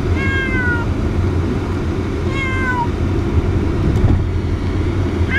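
Tabby cat meowing twice, each a long call falling in pitch, with a third starting just at the end, over the steady low rumble of a Volkswagen car's cabin on the road.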